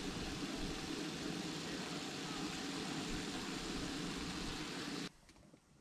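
Ground beef sizzling in a skillet over a camp stove burner: a steady hiss that cuts off suddenly about five seconds in.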